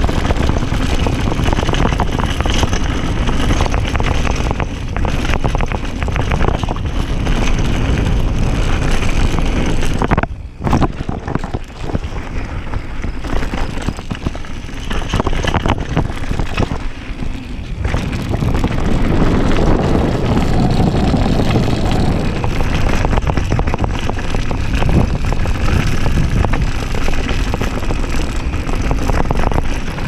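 Downhill mountain bike rolling fast over a dirt and gravel trail: a continuous rush of wind on the microphone mixed with tyre noise and frequent knocks and rattles from the bike over bumps. The noise dips briefly twice, about ten seconds in and again some seven seconds later.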